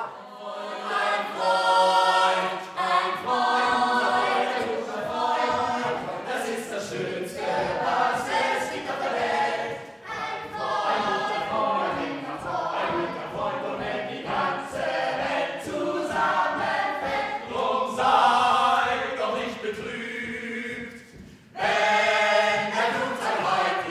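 Several voices singing together like a choir, with a short break shortly before the end followed by a loud final phrase.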